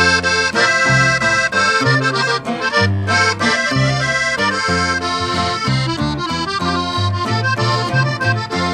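Norteño accordion playing an instrumental break between sung verses, over a steady bass line on the beat.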